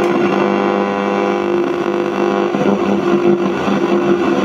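Sony CFM-S1 radio cassette recorder playing through its own speaker on shortwave band 1: a steady buzzing drone mixed with static rather than a clear station, the sign of a weak daytime shortwave signal.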